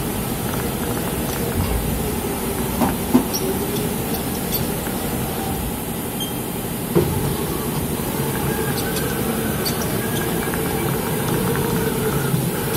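Steady running noise of a powered-up CNC vertical machining centre: a constant hum and hiss with a faint whine that comes and goes, and a few light knocks, the sharpest about three seconds in and again about seven seconds in.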